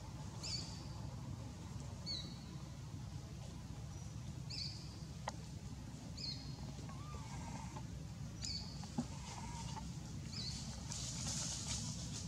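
A forest bird giving six short, high chirps, each dipping slightly in pitch, about two seconds apart, over a steady low background rumble. A couple of lower calls come in the middle, and a single sharp knock about nine seconds in is the loudest moment.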